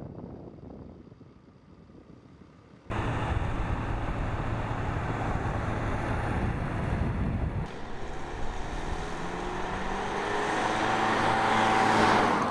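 Fiat Freemont SUV driving by on a road. Tyre and engine noise comes in suddenly about three seconds in, with a steady low hum. After a cut, the engine note climbs and the noise builds as the car passes close, loudest near the end.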